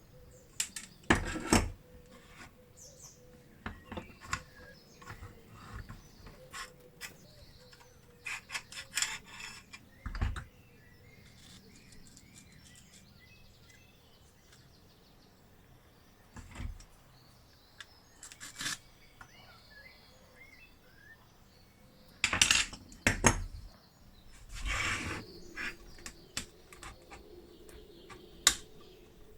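Irregular metallic clinks, knocks and scrapes of hand work on a small tin-plate toy and tools, with louder clusters of knocks about a second and a half in, around ten seconds in, and again from about twenty-two to twenty-five seconds in.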